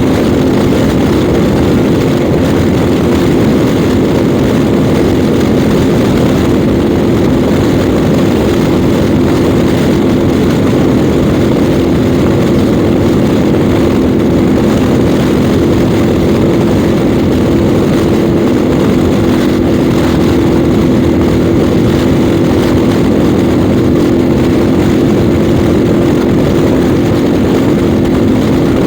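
Yamaha Ténéré 700 World Raid's parallel-twin engine running at a steady cruising speed, its note holding one pitch throughout, under heavy wind rush on the rider's microphone.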